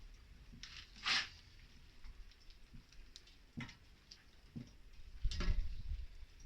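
Handling noises from work at close range: a brief hiss about a second in, then scattered light clicks and knocks, the loudest a knock with a low rumble near the end.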